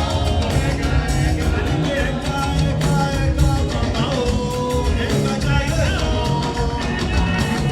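Loud live gospel praise music with a steady beat and strong bass, with singing over it.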